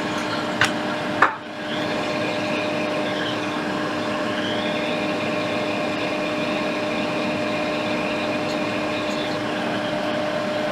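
Steady mechanical whir with a constant low hum, like a bench fan or extractor running, with two short clicks and a brief dip about a second in.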